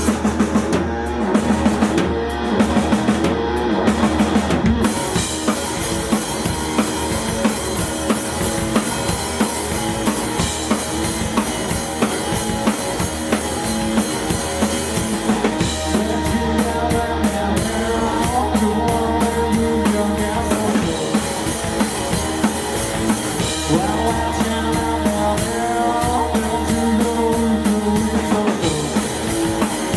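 Live rock band playing, with the drum kit to the fore: repeated kick and snare hits over the rest of the band, sharpest in the first few seconds.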